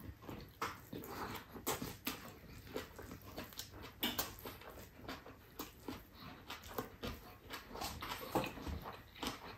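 Close chewing of rice and stir-fried chicken with greens, eaten by hand: soft, irregular wet smacks and clicks from the mouth, several each second.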